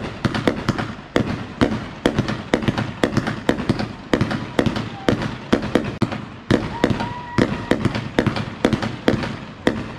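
Consumer aerial fireworks cake firing a rapid barrage, about three sharp pops a second as shots launch and burst into white crackling breaks. The barrage stops near the end.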